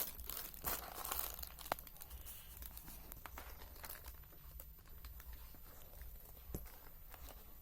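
Package wrapping being handled during an unboxing: faint rustling and crinkling, with a few scattered light clicks and taps.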